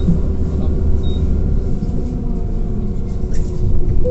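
Scania Citywide 12LF CNG city bus driving, heard from inside the passenger cabin: a steady low rumble of its compressed-natural-gas engine and road noise, with faint steady tones over it.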